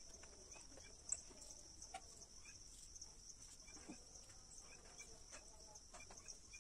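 Near silence: a faint, steady high chirring of crickets, with a few soft taps as raw momos are set into a perforated steel steamer tray, one sharper tap about a second in.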